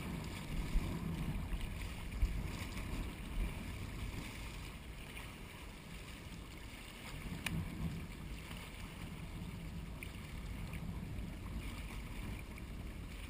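Wind buffeting the microphone: a low, uneven rumble with a few faint ticks.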